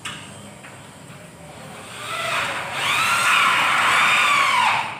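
Electric power drill running for about three seconds from about two seconds in, its whine rising in pitch and then slowly sagging before it stops.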